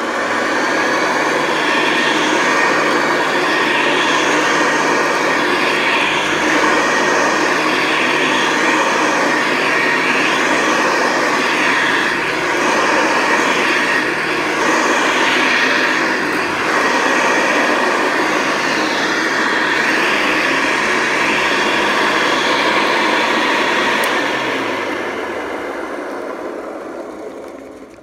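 Hoover Convertible upright vacuum cleaner running steadily as it is pushed over a rug. It starts right at the beginning and is switched off near the end, its motor winding down with falling pitch. The owner can't tell whether the noise is the motor or normal for this vacuum.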